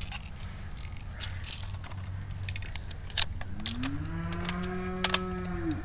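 A cow mooing once: one long low call that rises at the start, holds, and falls away at the end, lasting a little over two seconds. Scattered sharp clicks come before and during it.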